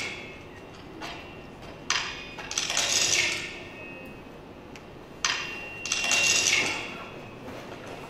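Cracking sound effect played back twice, about three and a half seconds apart, each a sharp crack followed by about a second of hissy crackling, marking the chicks hatching from their eggshells.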